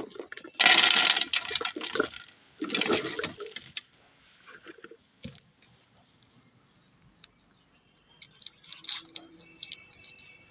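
Wet squishing and crunching as bubble gum is forced through a meat grinder, loudest in two bursts within the first few seconds, then quieter. Short high chirps and clicks come near the end.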